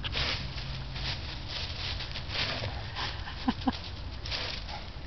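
Broom sweeping leaves in repeated short brushing strokes, with a Boston terrier puppy giving two quick high yips about three and a half seconds in.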